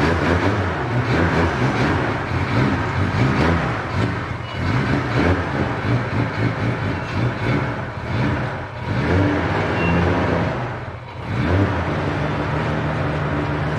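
Toyota Chaser's freshly rebuilt 1JZ inline-six engine and exhaust while the car is driven on its run-in tune, revving up and down repeatedly. The sound drops briefly about eleven seconds in, then settles into a steady drone.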